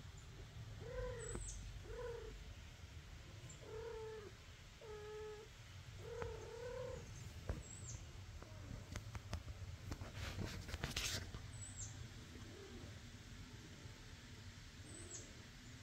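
A cat's short, low wailing yowls, five of them in the first seven seconds, each rising and falling. About ten seconds in comes a brief burst of rustling.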